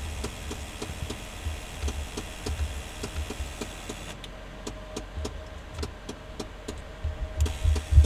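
2004 GMC Envoy engine idling, heard from inside the cab, with a light ticking over the low steady rumble. It is running smoothly with no misfire after the cylinder 4 ignition coil fault.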